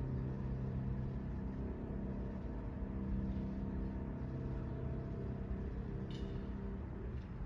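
Grand piano playing slow, sustained low chords that change every second or so, as the accompaniment in a trombone rest, over a steady low rumble. A short click comes about six seconds in and another near the end.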